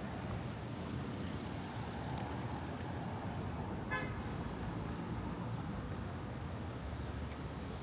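Steady city street traffic noise, with one short car horn toot about four seconds in.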